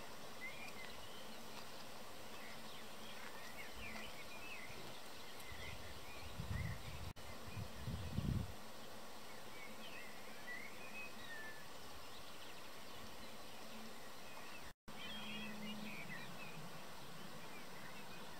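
Countryside ambience: distant small birds chirping and trilling on and off over a steady hiss, with a few low thumps about six to eight seconds in.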